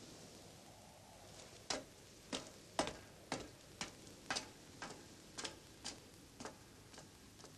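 Regular mechanical ticking, about two sharp ticks a second, starting under two seconds in and fading toward the end.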